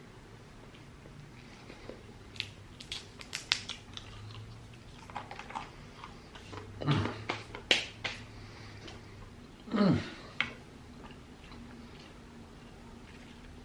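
Close-miked chewing of a burger-and-fries meal: wet clicks and smacks that come in bunches through the middle, with two short deeper sounds that fall in pitch.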